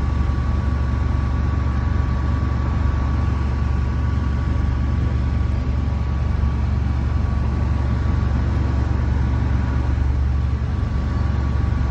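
Heavy truck engine running steadily: a deep, constant drone with a thin steady whine above it.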